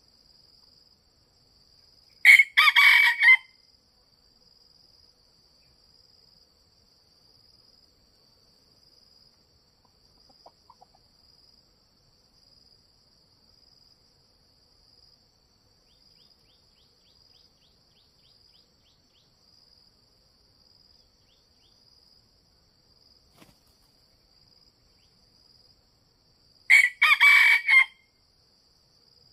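Red junglefowl rooster crowing twice, each crow short, about a second long, one about two seconds in and one near the end. A steady high-pitched insect drone runs underneath.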